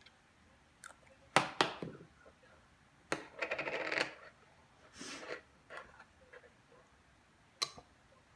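Clinks and clatters of a toddler handling a spoon, glass baby-food jars and a jar lid on a plastic high-chair tray: a few sharp knocks in the first two seconds, a quick rattle lasting about a second near the middle, and scattered taps later.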